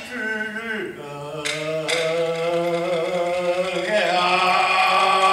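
Peking opera vocal delivery: a low man's voice in painted-face (jing) style, intoning in long drawn-out, sliding notes. Two sharp percussion strikes come about one and a half seconds in.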